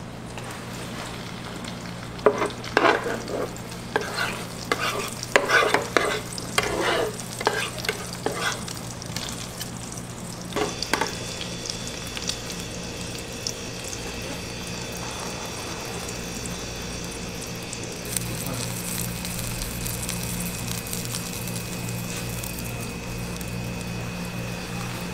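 Beaten egg sizzling in a large pan as a giant rolled omelette is turned with two plastic spatulas. The spatulas scrape and knock against the pan in a busy run of strokes over the first half. A steady low hum runs underneath.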